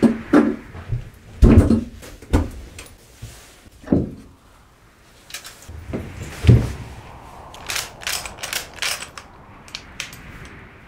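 A brass-framed lever-action rifle being handled: several dull knocks and thuds as it is taken off a wooden wall rack, then, about eight seconds in, a quick run of sharp metal clicks from the gun's action.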